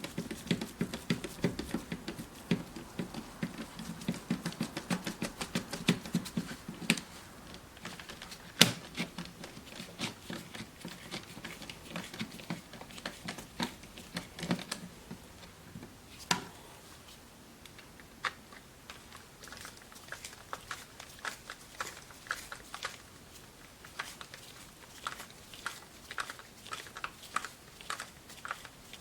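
Irregular light clicks and taps of small plastic and metal parts being handled as a portable multitrack recorder is put back together, with sharper clacks about nine and sixteen seconds in.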